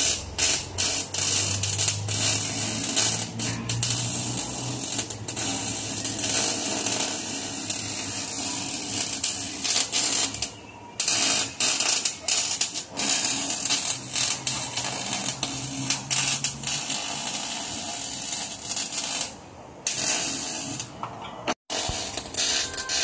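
Electric arc welding on a car's engine-bay steel: the arc crackles and sizzles steadily. It stops briefly about eleven seconds in and twice more near the end as the weld is paused.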